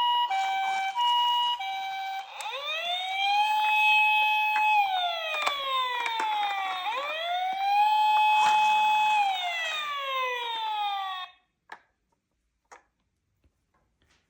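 Electronic siren of a toy emergency vehicle, played from its small speaker: first a hi-lo two-tone pattern switching about twice a second, then a wail that rises, holds and falls, twice over, cutting off suddenly about eleven seconds in. A few faint clicks follow.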